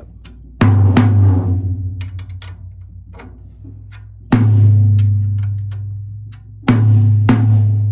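A tom-tom drum with a clear head struck with a drumstick five times, in a pair, a single hit, then another pair, each hit ringing a low note that fades over a couple of seconds. The head is tuned low, with only two opposite lugs brought up to tension. Faint small ticks come between the hits.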